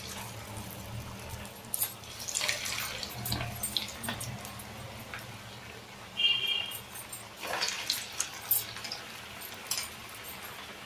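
Coconut fritters sizzling in hot frying oil, a steady hiss with louder surges of sizzling now and then as flattened pieces of batter go into the oil.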